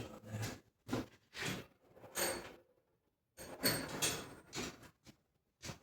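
Hand tools and small metal parts being handled and moved on a workbench: a series of short rustles and clatters, with a light metallic clink about three and a half seconds in.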